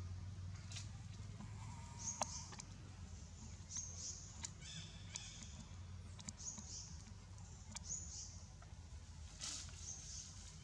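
Baby long-tailed macaque giving short, high-pitched squeaks every second or two, the sound of an infant begging to nurse. A sharp click sounds about two seconds in.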